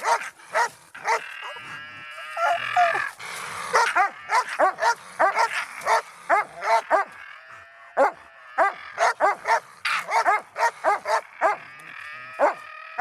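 A young Russo-European Laika barking over and over at a raccoon it is baying, in quick runs of short, high barks with brief pauses between them.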